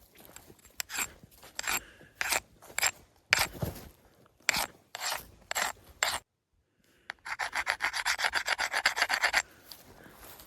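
Uneven footsteps crunching on a dry, stony trail. After a brief break about six seconds in, a fast rasping scrape of about ten strokes a second runs for roughly two seconds.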